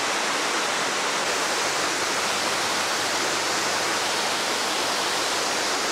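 Small waterfall cascading down stepped rock ledges: a steady, even rush of falling water.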